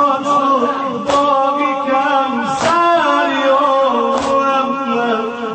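Afghan nauha, a Shia lament, sung by a man with long, slowly bending notes. A regular beat falls about every second and a half.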